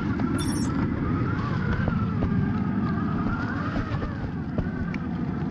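Traxxas TRX-4 RC crawler's electric motor and geared drivetrain whining, the pitch rising and falling with the throttle as it drives through snow, over a steady low rumble and a few sharp clicks.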